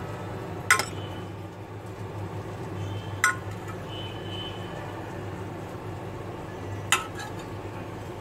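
Serving spoon scooping through rice in a glass baking dish, striking the glass three times with sharp clinks, over a steady low hum.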